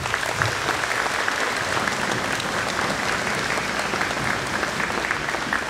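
Audience applauding: many hands clapping at once, steady throughout.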